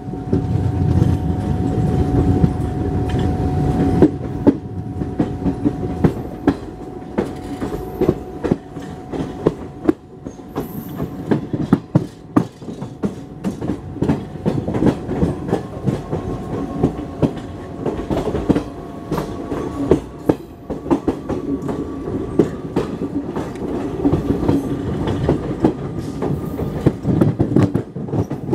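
Wheels of a moving passenger train coach running over the track, heard from aboard: a low rumble with an irregular clatter of sharp clicks over the rail joints, and a faint steady whine underneath.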